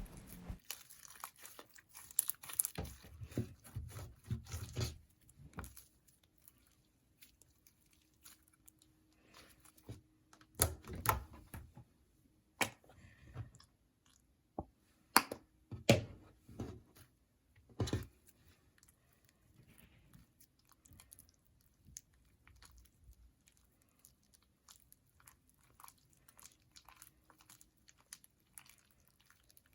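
Slime being kneaded and stretched by hand as activator is worked into it, making irregular sticky clicks, pops and crackles, with a handful of louder snaps in the middle.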